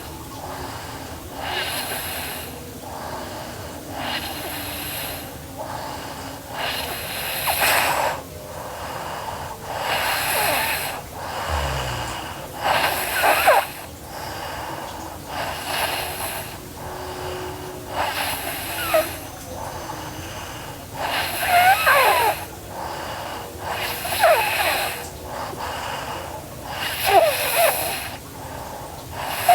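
A sleeping girl snoring: noisy breaths, in and out, about every one to two seconds, several with a thin, wavering, whistling wheeze.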